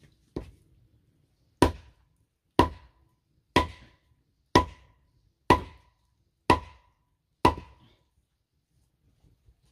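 Wooden club knocking on the top of a wooden stake to drive it into the ground. There are eight strikes about a second apart, the first one lighter, and each knock has a short ringing tone.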